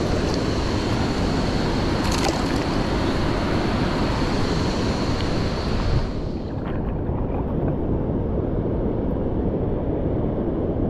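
Steady rush of wind on the microphone and flowing river current, with a short sharp sound about two seconds in as the hooked shoal bass is brought splashing to the kayak. After about six seconds the rush turns duller.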